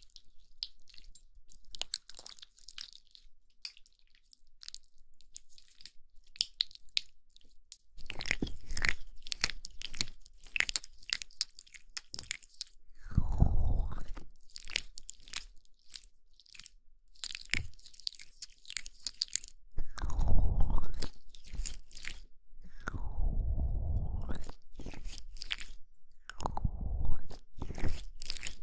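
Oiled hands rubbed together, then rubbing and massaging the silicone ears of a binaural ear-shaped microphone: close, crackly rubbing that grows louder after the first several seconds. Four times in the second half, deep muffled rumbles come as the palms cup over the ears.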